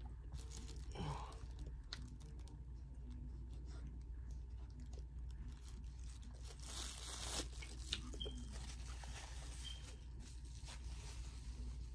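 Tacos wrapped in aluminum foil being handled and eaten: quiet crunching, small clicks and rustling, with a longer rustle about seven seconds in.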